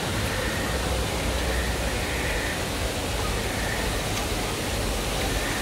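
Steady rushing noise with a low rumble, and a faint murmur of distant voices.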